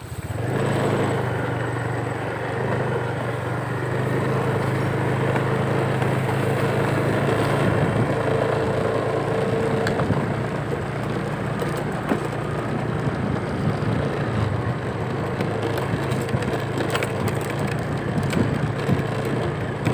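A small engine running steadily, with a rough, crackling noise over it; it starts up at once.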